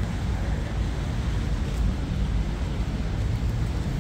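Steady low rumble of outdoor city street ambience, with no distinct events.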